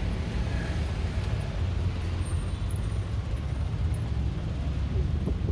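City street traffic: a steady low rumble of motor vehicle engines close by, with a fainter wash of street noise above it.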